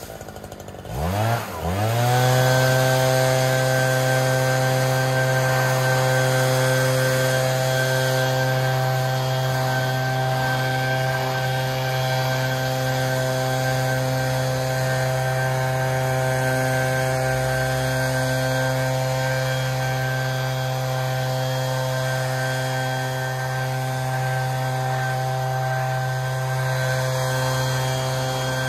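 Echo PB-8010 backpack leaf blower's two-stroke engine, throttled down right at the start and revved back up within about two seconds, then held steady at high throttle.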